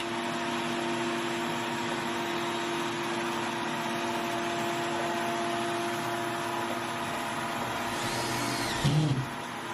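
An electric motor, starting abruptly and running steadily with a rush of air and a constant whine. There is a brief louder sound near the end.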